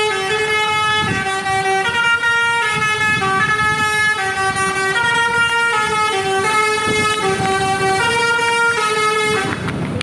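Basuri telolet musical bus horn playing a tune: a run of loud horn notes stepping from pitch to pitch every half second or so, ending about nine and a half seconds in.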